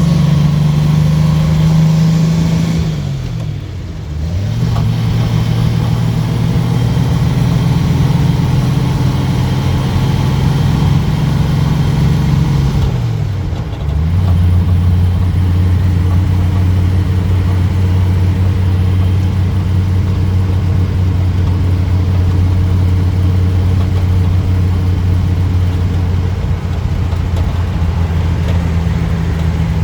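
1949 Rover P3's engine pulling the car along on the road, with two upshifts: about three and a half seconds in and again about fourteen seconds in, the engine note dies away briefly while the clutch is in, then comes back at a lower, steady pitch in the next gear.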